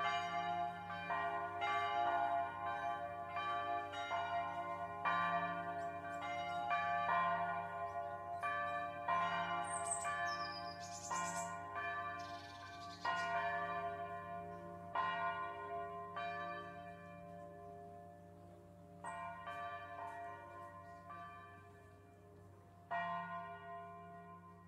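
Church bells of Taizé ringing: many bells struck in an irregular, overlapping pattern, each strike ringing on, the peal thinning out and fading away near the end.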